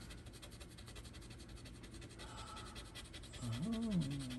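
A plastic coin scraping the silver coating off a scratch-off sticker in rapid back-and-forth strokes. Near the end a person's voice sounds briefly, rising and falling in pitch.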